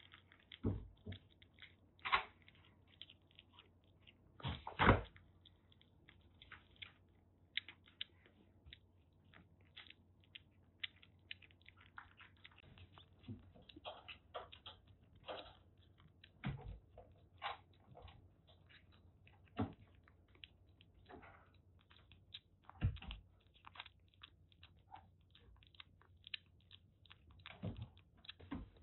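Kitten eating wet cat food from a metal dish: a run of small, irregular wet clicks and smacks of chewing, with a few louder knocks.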